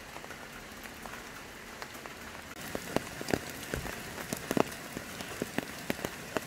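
Raindrops falling: scattered, irregular sharp drips that begin about two and a half seconds in, over a steady faint hiss.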